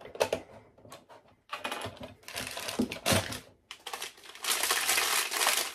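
Handling of a plastic toy locker and a small accessory bag: sharp plastic clicks and taps, then crackling and crinkling of the bag, densest near the end.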